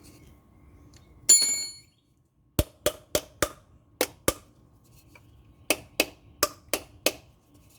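A single metal clang that rings briefly, then about a dozen sharp light taps in two runs, three or four a second: a socket being tapped to knock it loose from a Porsche oil filter canister.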